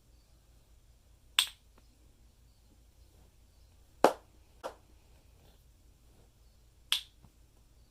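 Sharp clacks of a ball striking a cup-and-ball toy: a single clack, then two about half a second apart, then another single one near the end.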